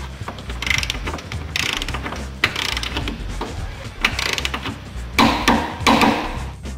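Ratchet-head wrench clicking in about five separate spells of rapid clicks as the upper jackshaft bolt of a snowmobile belt drive is worked tight toward 35 foot-pounds.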